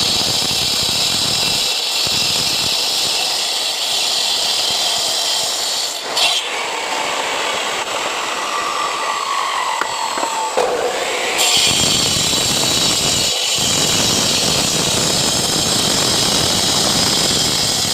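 Handheld power cutter with a masonry disc cutting concrete paving blocks: a continuous high grinding whine. The tone changes partway through, with a whine that drops in pitch for a couple of seconds before it comes back up.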